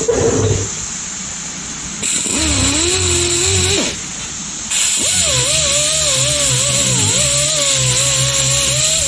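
Electric angle grinder running in two spells, a short one about two seconds in and a longer one from about five seconds. Its whine wavers and dips as it bites into the panel, grinding the paint off to bare metal for the dent puller's ground. A short knock comes at the very start.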